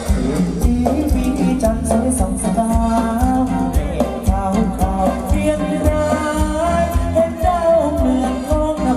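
Thai ramwong dance music from a live band: a singer carries the melody over a steady, even percussion beat.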